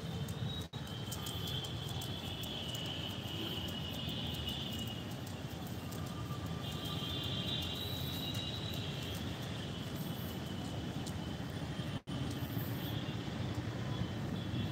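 Outdoor background: a steady low rumble with long stretches of high chirping over it; the sound cuts out completely for an instant twice, once near the start and once near the end.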